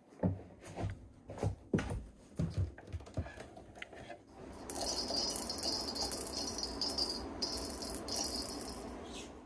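A few knocks and footfalls on a wooden floor, then from about four and a half seconds in a rattle reel's clicker rattling steadily as line pays out from the spool down the ice hole, stopping near the end.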